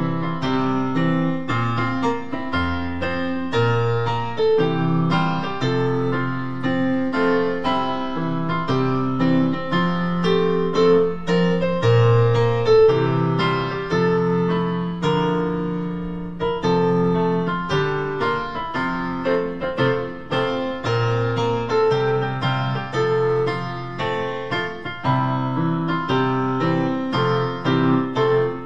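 Piano playing a slow school hymn tune in chords, with no singing.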